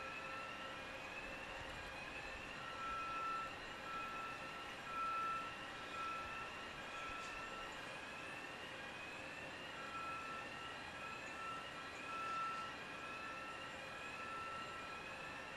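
Electronic alarms sounding: a rising sweeping tone repeats a little more than once a second, with a second steady high tone pulsing on and off over a low background rumble.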